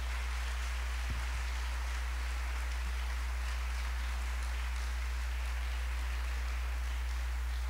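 Audience applauding, an even wash of clapping that holds steady, over a steady low hum.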